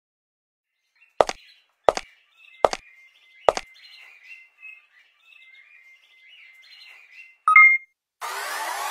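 Soundtrack sound effects: four sharp knocks about two-thirds of a second apart over light bird chirping, then a short two-tone electronic beep about seven and a half seconds in. Near the end a noisy rising sweep starts.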